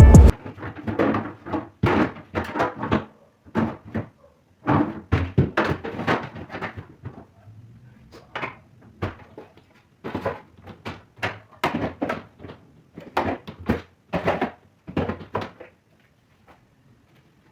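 Repeated knocks and clatter of containers, jars and shelves being set down and moved around inside a refrigerator, in irregular clusters.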